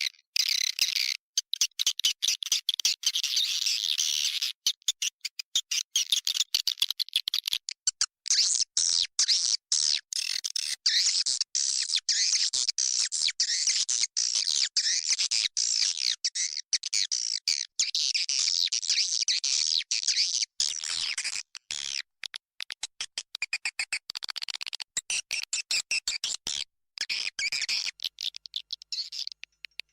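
Swiftlet-house lure recording: dense, high twittering chirps of many edible-nest swiftlets, the external calling track played outside a swiftlet house to draw birds in. The calling is chopped by frequent abrupt gaps of silence.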